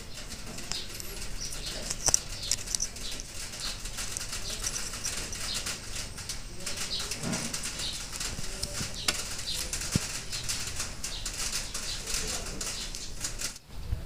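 Irregular rustling with light clicks and taps from hands handling small objects on a cloth surface.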